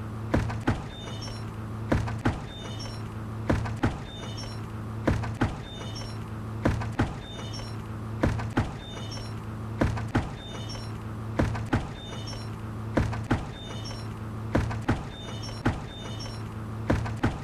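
A hanging bucket swaying and knocking in a steady rhythm: two knocks about a third of a second apart, repeating roughly every one and a half seconds, with short high squeaks between them, over a steady low hum.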